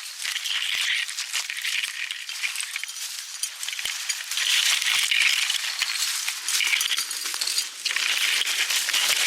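Dense brush and twigs rustling, scraping and crackling against clothing and gear as a person pushes through a thick thicket, coming in surges.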